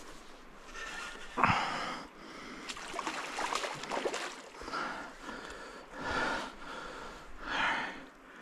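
A man breathing hard in heavy, audible breaths every second or two, from the exertion of fighting a large chum salmon on rod and reel.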